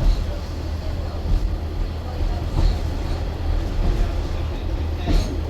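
Low, steady rumble of a railway train, with a few faint clicks.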